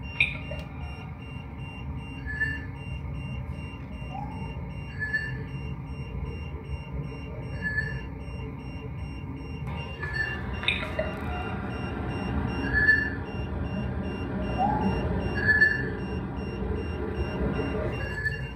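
Short whistle-like tones over steady hiss: a brief high note repeats about every two and a half seconds, and twice a short rising glide sounds lower down. The uploader takes them for someone trying to whistle, changing pitch, in an EVP recording.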